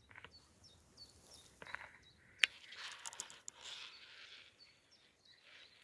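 Small birds calling with short, high, repeated chirps, over rustling and crunching on the forest floor from footsteps, with a sharp snap about two and a half seconds in.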